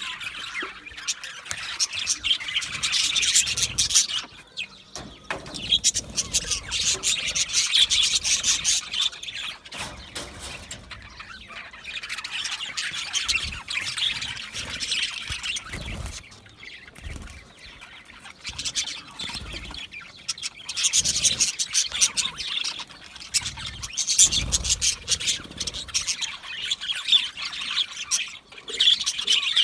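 A group of budgerigars chirping and chattering, with rapid high calls that swell into louder bouts every several seconds and ease off between them.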